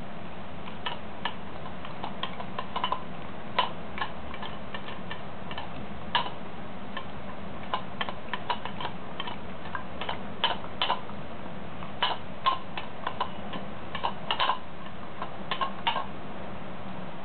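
A corgi eating from a stainless-steel bowl: irregular sharp clicks and clinks as its mouth and the food knock against the metal.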